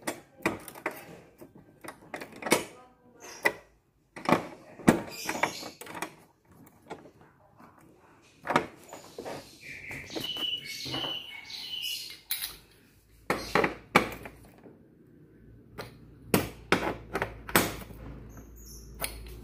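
Irregular metallic clicks, clinks and knocks of a 14 mm spanner working the bolts that fasten TV wall-bracket arms to the back of a TV, with a few short high squeaks a little after the middle.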